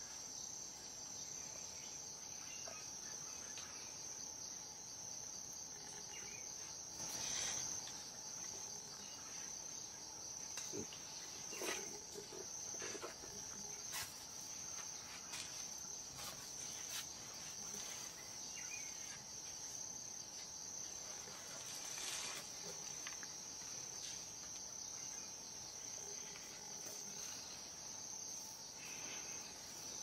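Steady, high-pitched drone of an insect chorus, with a fainter steady lower tone beneath it. A few short rustles or knocks break in about 7 s, 12 s and 22 s in.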